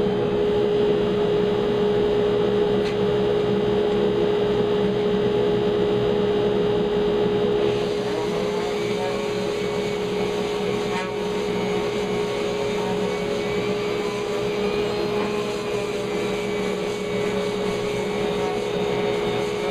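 A 4-inch shop dust collector running steadily, drawing air through a downdraft sanding table, with a strong steady hum. About eight seconds in the sound shifts, becoming a little quieter with a higher whine added.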